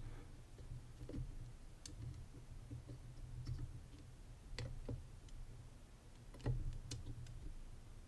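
Disc-detainer pick turning the discs inside an OnGuard disc padlock: faint, scattered metallic clicks, several seconds apart at first and a few closer together after the middle, over a low hum. They are the sounds of the discs being rotated while the picker feels for their gates.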